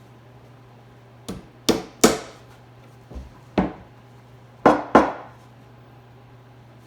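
Hammer driving nails into wood framing: about seven sharp strikes in uneven groups, some coming in quick pairs.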